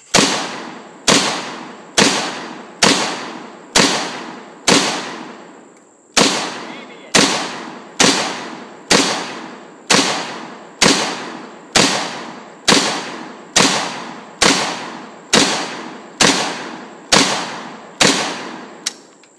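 AK-pattern rifle fired in semi-automatic, about twenty single shots a little under a second apart, with one longer pause early on. Each shot is followed by a long echoing tail.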